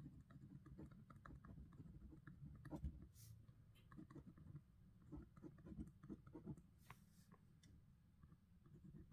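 Faint, irregular scratching and tapping of a pen writing on paper, with a couple of brief swishes.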